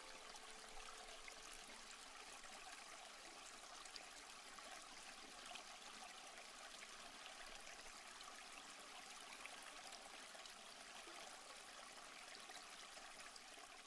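Near silence: a faint steady hiss as the background music ends, its last held notes dying away in the first second or two.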